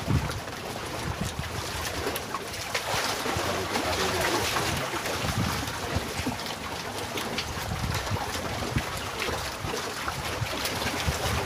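Wind blowing across open reservoir water, with choppy water washing against a floating raft and uneven low rumbles of wind buffeting the microphone.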